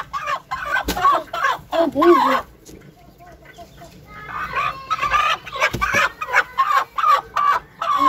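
Broody Aseel hen clucking and squawking as she is handled, her calls stopping for a second or two mid-way and then resuming, with a few sharp knocks among them.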